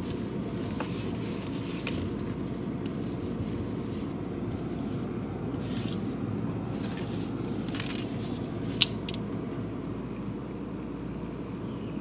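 Cloth wiping the ridged plastic inside of a freezer, with irregular rubbing and scraping strokes over a steady low hum. There is one sharp click a little before the last few seconds.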